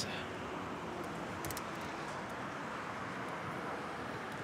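Steady city traffic and road noise heard while riding a bicycle along a street, with a couple of faint clicks about a second and a half in.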